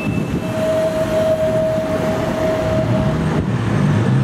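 Blackpool Boat Car 600 tram approaching unseen on the rails, a steady rumble with a held mid-pitched whine that fades about three seconds in.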